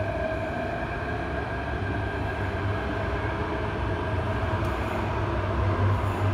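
Hyundai Rotem K-Train metro train pulling away from the platform: the IGBT-VVVF traction inverters and motors give a steady multi-tone whine over the rumble of wheels on rail. The rumble grows louder toward the end as the train gathers speed.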